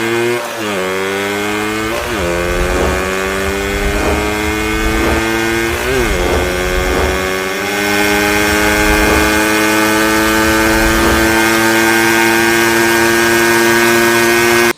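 Motorcycle engine pulling away and accelerating, its pitch climbing and then dropping at gear changes about half a second, two seconds and six seconds in, then settling into a steady drone at cruising speed. It cuts off abruptly at the end.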